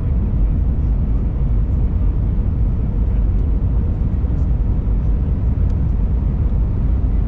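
Steady low rumble inside the cabin of an Airbus A321 in flight: engine drone and airflow noise heard from a window seat, unchanging throughout.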